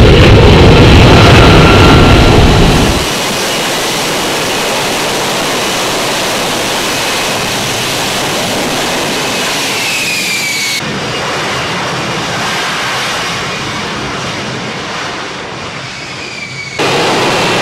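Lockheed Martin F-35B jet engine running loud, with heavy low rumble, for about three seconds. It then cuts abruptly to quieter, hissier jet noise with faint high whines falling in pitch, changing again at further cuts.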